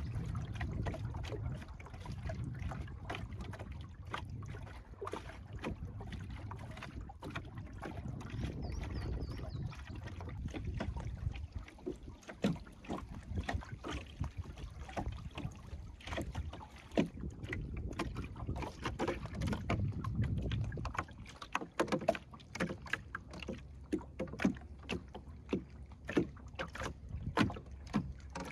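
Water lapping and slapping against the hull of a small skiff under sail, in quick irregular splashes. A low wind rumble on the microphone dies away after about twenty seconds, leaving the splashes sharper and clearer.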